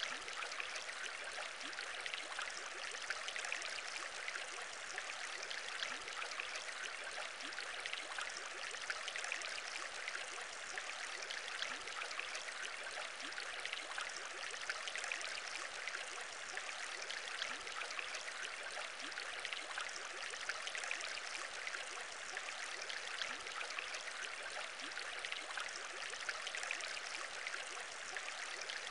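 Aquarium bubbling: a steady stream of air bubbles in water, with many small quick blips over a constant watery hiss.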